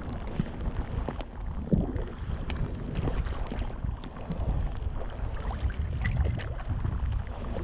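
Wind buffeting the camera microphone as a low, steady rumble on a fishing boat, with scattered light ticks and taps.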